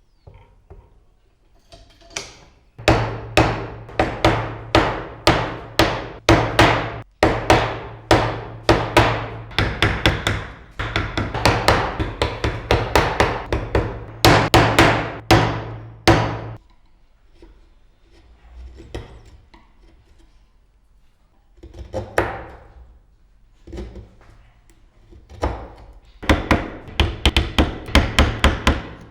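Mallet striking a carving chisel into wood, in long runs of quick, sharp blows. The blows stop briefly, come a few at a time, then speed up again near the end.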